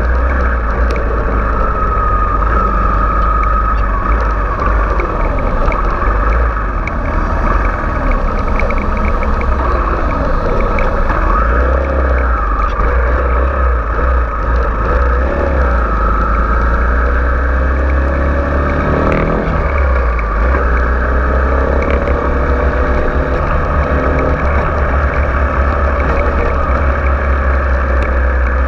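Kawasaki Ninja 250FI's parallel-twin engine running under way, its pitch rising and falling as the rider revs up and eases off, with a quick rev up and drop a little past halfway. Wind rumbles steadily on the bike-mounted microphone.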